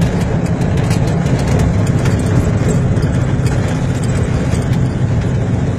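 Car engine and road noise heard from inside the cabin while driving, a steady deep rumble.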